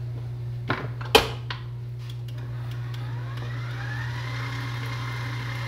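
Stand mixer motor starting about three seconds in, its whine rising in pitch for about a second and then holding steady as the beater runs through a batter of creamed butter and egg. Before that come two sharp knocks about a second apart, the second the louder, as the steel bowl is scraped down.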